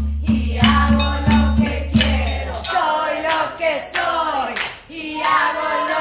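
A group of women singing together over rhythmic percussion, with strikes about three times a second. The beat and a low held tone stop about halfway through, and the voices carry on alone.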